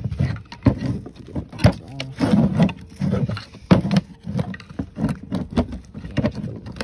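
Irregular metal knocks and clanks from working stuck brake pads loose in a Toyota Avalon's rusty rear brake caliper bracket.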